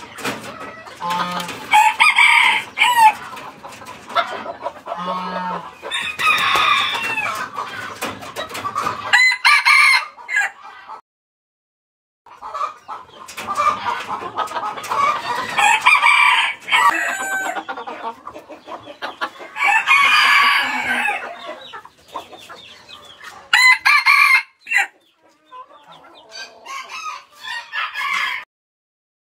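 Young roosters crowing, one long crow after another every few seconds with quieter gaps between. The sound drops out completely for about a second near the middle and stops shortly before the end.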